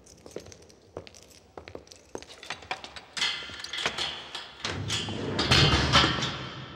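Footsteps on a hard floor, then a loud rattling clatter with a low rumble that builds for about three seconds and fades near the end.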